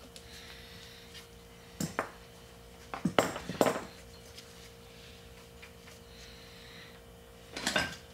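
A steel wrench clinking against a bolt and nut screwed into the wheel's bearing retainer: a clink about two seconds in, a louder cluster of clinks around three to four seconds, and another near the end, over a faint steady hum.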